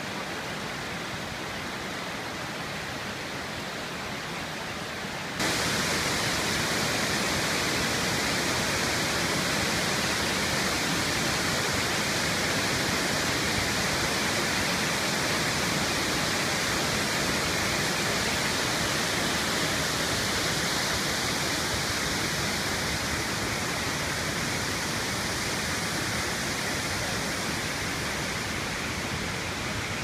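Waterfall's steady rush of falling water, jumping abruptly louder about five seconds in and then holding steady.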